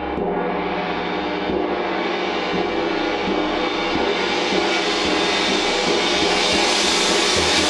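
A 22-inch Chinese wind gong kept sounding by light, repeated soft-mallet strokes, its held tones swelling steadily louder and brighter as the high shimmer builds.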